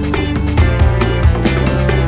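Background rock song with a steady beat.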